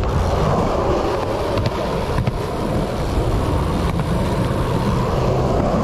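Wheels rolling over a concrete skatepark surface with a steady rumble, wind buffeting the microphone, and a few light clicks along the way.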